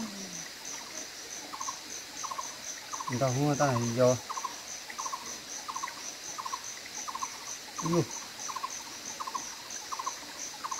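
Insects chirping: a fast high pulsing about four times a second over a lower chirp repeated about twice a second. A louder wavering voice-like call sounds a little after three seconds in, and a brief call near eight seconds.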